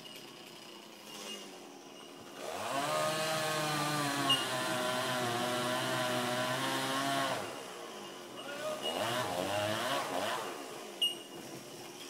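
Chainsaw up in a dead tree revving up about two seconds in and cutting steadily for around five seconds before dropping off. A second, shorter and weaker run of cutting follows.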